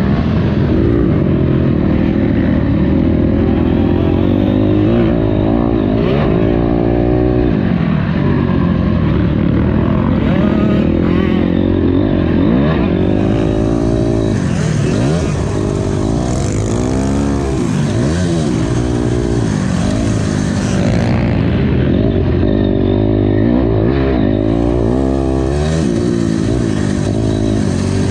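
Motocross bike engine being ridden hard, its pitch rising and falling again and again as the rider opens and closes the throttle and shifts.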